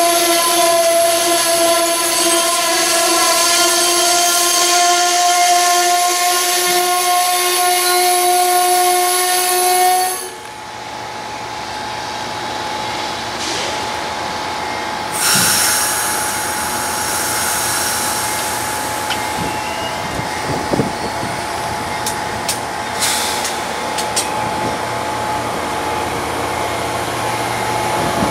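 Amtrak passenger train passing close by. A long, steady horn blast from the locomotive down the line cuts off abruptly about ten seconds in. The coaches then keep rolling past with wheel rumble and a few sharp clicks over the rail joints.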